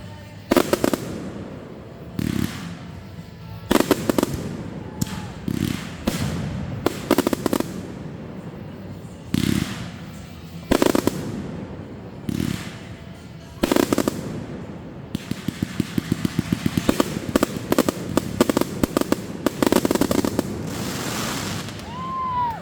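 Fireworks going off: loud shell bursts every second or two, then from about two-thirds of the way in a rapid volley of bangs and crackling, several a second.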